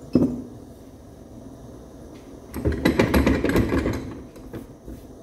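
Workshop handling noises, metal engine parts and tools being moved on a workbench: a sharp knock just after the start, then about a second and a half of clattering and clinking, over a steady background hiss.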